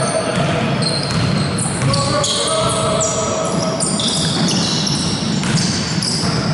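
Sounds of a basketball game on a hardwood gym floor: the ball bouncing and sneakers squeaking in short high-pitched bursts as players move.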